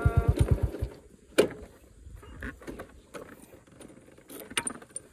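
Motorcycle engine idling with about ten even thumps a second, switched off about a second in. A sharp click and a few light clicks and rattles follow.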